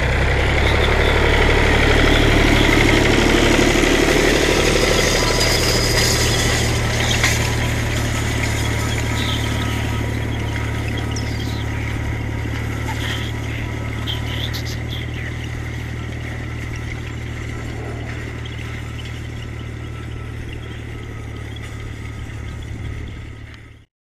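Fiat 540 Special tractor's four-cylinder diesel engine running steadily as it works the field with a rotary hay rake, growing gradually fainter as the tractor moves away. The sound cuts off suddenly near the end.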